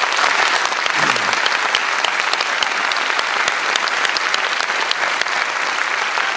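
Audience applauding steadily, many hand claps blending into one even sound.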